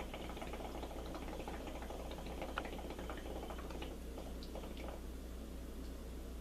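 Steady bubbling of liquid with small irregular pops and clicks, over a constant low hum.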